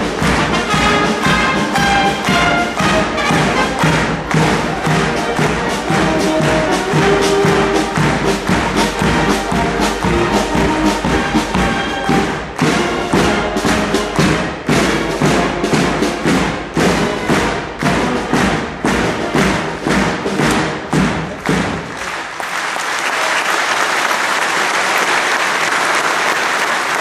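Military brass band playing a march over a steady bass-drum beat. The music ends about 22 seconds in and gives way to audience applause.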